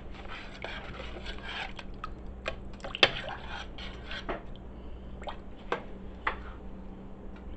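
Kitchen utensils and cookware clinking, scraping and knocking in a stew pot, with a sharper knock about three seconds in, over a low steady hum.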